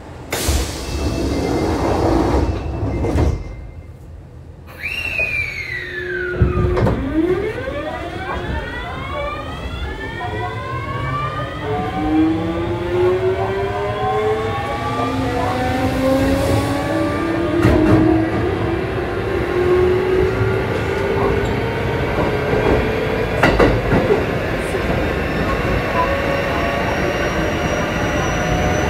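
Kintetsu 7000 series electric train's Mitsubishi GTO VVVF inverter starting up as the train pulls away. About five seconds in, one tone sweeps down and a fan of whining tones then rises steadily in pitch as the train gathers speed, over wheel and rail rumble.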